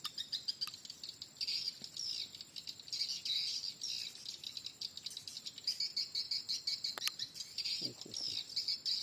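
Swiftlets twittering: a dense, unbroken wash of high chirps and fast clicking trills. A sharp click about seven seconds in.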